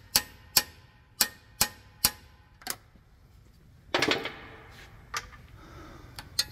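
Sharp metallic clicks from a wrench working the torque converter bolts, about two a second and fading over the first three seconds. A louder clatter comes about four seconds in, followed by a couple more clicks.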